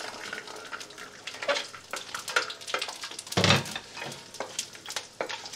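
Whole spices and dried limes sizzling in hot sunflower oil in a wok, stirred with a wooden spatula, with scattered clicks and one louder knock about three and a half seconds in.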